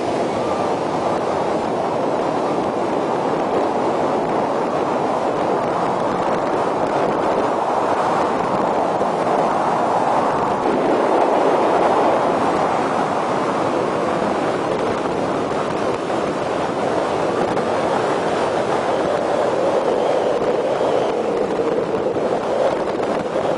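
Steady rushing noise of a motorboat under way: water washing along the hull and wind buffeting the microphone.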